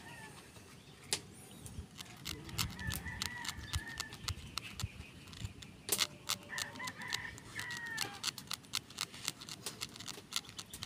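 Chickens clucking in short pitched calls, twice in the stretch, among many small sharp clicks.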